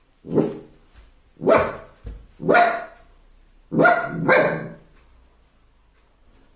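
A puppy barking at its own reflection in a mirror: five short barks, the last two in quick succession about four seconds in.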